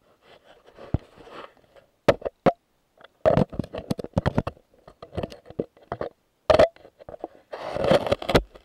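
Irregular run of sharp clicks and knocks picked up underwater, bunched closely together, with a short burst of rushing noise near the end.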